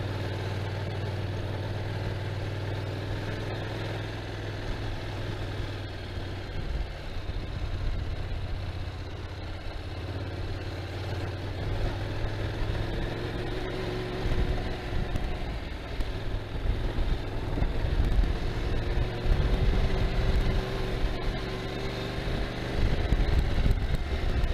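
Motorcycle engine running at a steady low note at first, then louder and wavering in pitch from about halfway as the bike works up a steep, rough climb. Rumble from wind on the microphone runs underneath.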